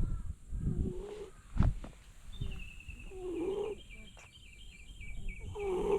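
Stray cat snoring in its sleep: short, low, wavering snores about every two and a half seconds. A bird chirps a quick repeated call in the background from about two seconds in, and there is a brief thump about a second and a half in.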